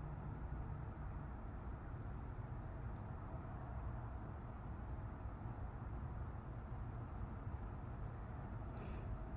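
Crickets chirping, a steady high pulsing trill, over a low steady rumble of background noise.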